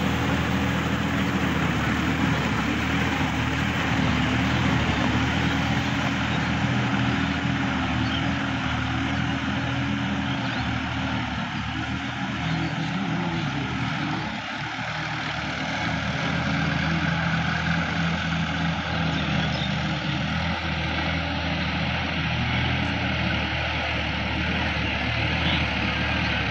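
Diesel tractor engine running steadily under load as it pulls a rotary tiller through flooded paddy mud. It grows a little fainter about halfway through and louder again toward the end.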